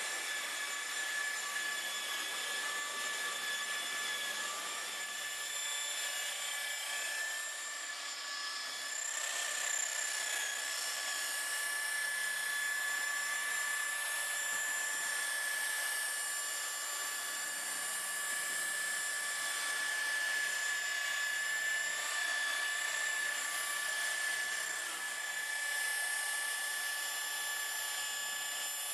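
Electric car buffer (polisher) running steadily with a high whine as it polishes the paint and trim.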